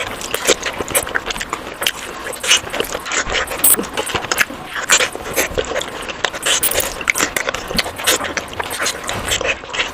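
Close-miked chewing and mouth sounds of a person eating: many rapid, irregular clicks and smacks.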